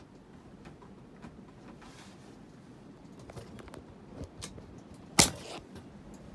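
Hampton Bay Cameron II Plus 52-inch ceiling fan running on high speed, with light irregular clicking from the blade arms, which rattle a little because their mounting screws are loose. A single sharp knock about five seconds in.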